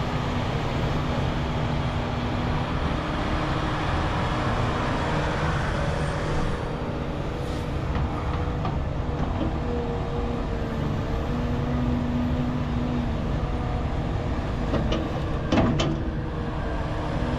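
Volvo EC550 excavator's diesel engine running steadily under load while digging hard clay, its pitch shifting a little as the hydraulics work. A few sharp knocks come near the end.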